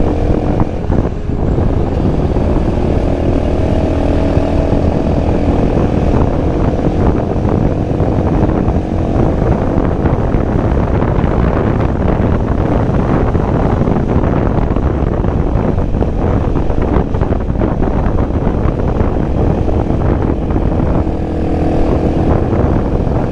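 Motorbike engine running steadily while being ridden up a winding mountain road, with heavy wind rumble on the microphone.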